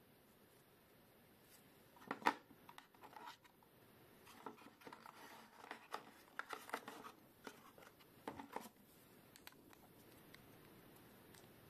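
Packaging and small camera accessories being handled: an irregular run of clicks, taps and rustles. The loudest is a sharp click about two seconds in, and the handling dies away near the end.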